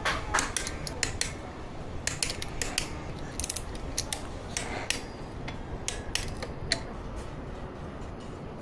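Irregular metallic clicks and clinks of hand tools and metal engine parts being handled during clutch-pack work on a motorcycle engine, dozens of sharp ticks at uneven spacing.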